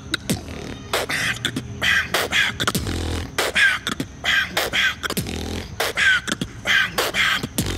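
Human beatboxing: a fast rhythm of sharp kick- and snare-like mouth clicks, with low bass hums and short falling whistle-like vocal tones woven between the beats.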